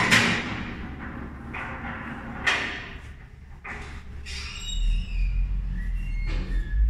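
A pool cue striking the cue ball hard, then pool balls knocking against each other and the table, with the loudest knock at the start. A few short high gliding tones follow near the end.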